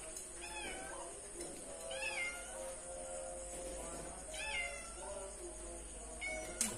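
A cat meowing repeatedly: four separate meows about one and a half to two seconds apart, each rising then falling in pitch.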